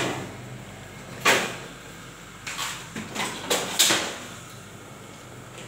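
About five short clunks and scrapes of X-ray equipment being handled and moved, coming in the first four seconds, then quieter.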